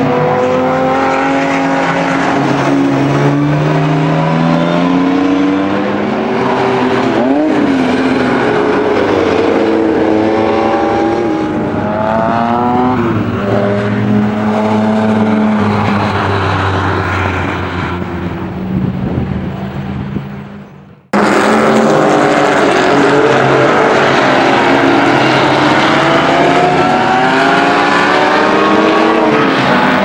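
Jaguar E-type race cars' straight-six engines running hard past the track, their pitch rising as they accelerate and dropping at gear changes and as they pass. About two-thirds through, the sound fades out and cuts abruptly to another loud stretch of engine noise.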